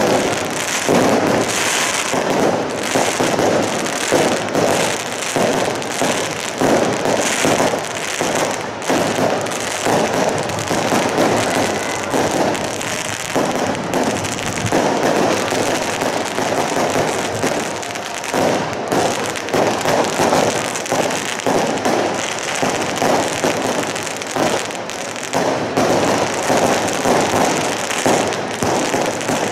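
Aerial fireworks display: a dense, unbroken barrage of shell bursts and crackling, many bangs a second.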